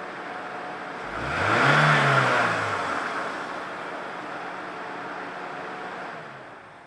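A car engine revs up once and drops back over about two seconds, over a steady hiss that fades near the end.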